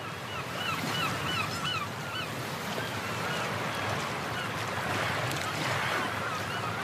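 Surf and waves washing steadily, with a bird giving quick series of short calls, about three a second in the first two seconds and again near the end.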